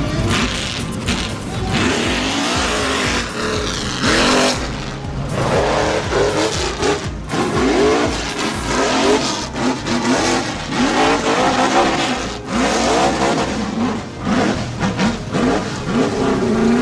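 Tube-chassis rock racing buggy engine revving hard, its pitch sweeping up and dropping back again and again, about once a second, as the buggy climbs a steep dirt hill.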